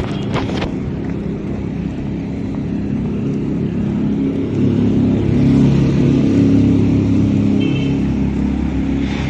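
A motor vehicle engine running over road noise, getting louder about halfway through as it picks up speed, then holding steady.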